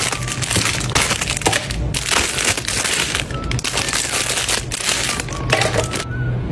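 Dense crinkling and crunching made of many quick cracks in close succession, over faint background music. The crackling cuts off near the end.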